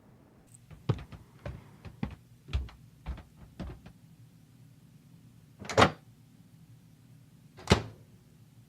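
Footsteps, about six in a row at a walking pace, then two louder clunks of a door, as of a freezer or cabinet door being opened and shut.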